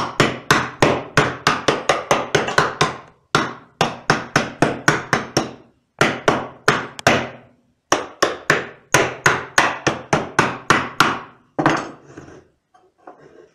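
A hammer striking the tops of wooden bucket staves in quick blows, about four a second, in four runs with short pauses between. The staves are being knocked down level inside the hoop, leaving two taller ones as ears for the rope handle.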